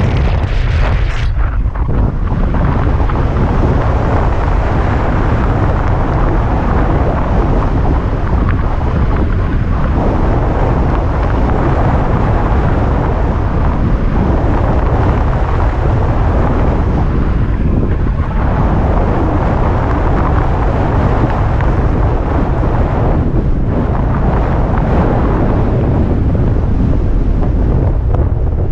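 Loud, steady wind rushing over the camera microphone from the airspeed of flight under a speed wing, easing briefly a few times.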